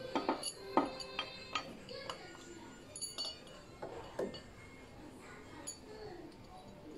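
Metal tools and engine parts clinking and knocking as they are handled at the water pump pulley, the sharp impacts ringing briefly. A quick run of clinks comes in the first second and a few more about three to four seconds in.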